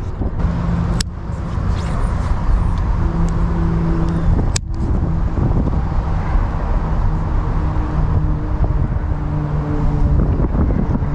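Gusting wind buffeting the microphone, with a steady motor hum underneath that shifts in pitch a few times. The sound cuts out briefly about a second in and again about four and a half seconds in.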